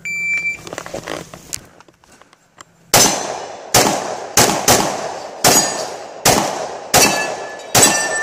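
A shot-timer start beep lasting about half a second, then, about three seconds in, a Glock 20 10mm pistol firing eight shots at uneven intervals of under a second, each crack trailing off in a short echo.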